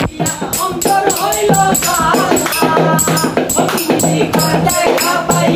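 Young men singing a Bengali song together to hand-played percussion and handclaps, an even beat of about four strokes a second under the voices.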